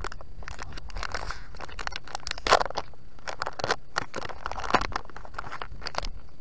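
Kvikk Lunsj chocolate bar's paper wrapper being torn open and unfolded by hand, crinkling and rustling in irregular bursts, loudest about two and a half seconds in.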